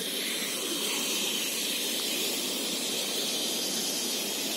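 Steady rush of sea surf breaking on a sandy beach.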